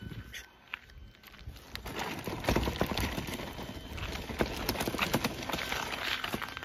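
Rustling and knocking of a pet stroller being handled close to the microphone, mixed with footsteps on gravelly dirt. It starts about two seconds in.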